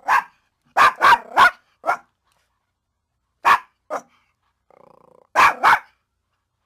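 A dog barking in quick runs of short, sharp barks, about nine in all, with a brief low growl about five seconds in just before a final pair of barks.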